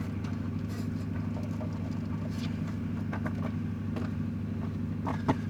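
Lada Kalina's engine idling steadily, with a few faint clicks and one sharper knock near the end.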